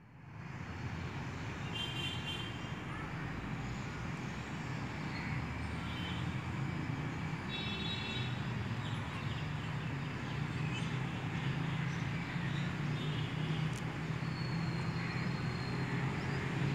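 Steady low rumble with a humming undertone, like distant traffic or an engine, with a few short high-pitched chirps about two, six, eight and thirteen seconds in.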